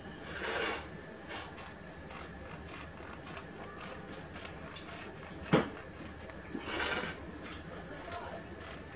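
Serrated bread knife sawing horizontally through a baked brioche: a few soft rasping strokes and faint crackles of the crust, with one sharp click about five and a half seconds in.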